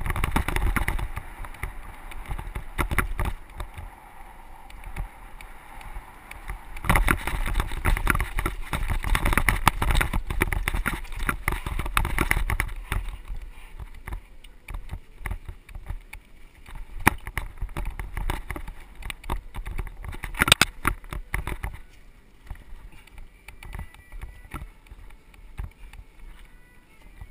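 Mountain bike riding fast down a dusty dirt trail: tyres on loose dirt, the bike's chain and frame rattling over bumps, and wind rumble on the microphone. It is loudest about seven to twelve seconds in, with a sharp clatter about twenty seconds in, and settles quieter near the end.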